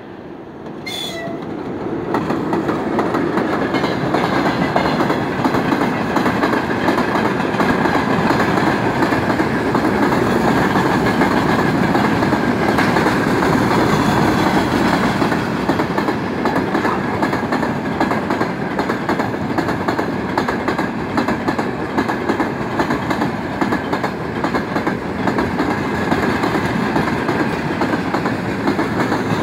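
Freight train passing close by, hauled by a VL11 electric locomotive. The sound builds over the first two seconds as the locomotive arrives, then goes on as a steady rumble of freight wagons' wheels on the rails.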